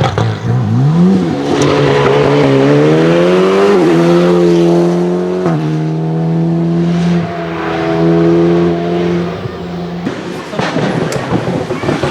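Alpine A110 R-GT rally car's turbocharged 1.8-litre four-cylinder engine pulling hard, revs climbing, then dropping suddenly at an upshift about five and a half seconds in. It holds steady revs until nearly ten seconds in, then gives way to a rougher, irregular engine sound near the end.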